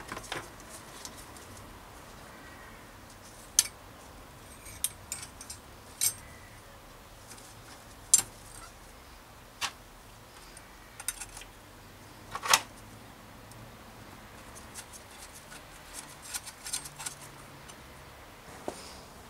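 Sharp metallic clicks and clinks as a crankset's chainrings and bolts are handled by hand, scattered a second or more apart, with a busier run of small clicks near the end.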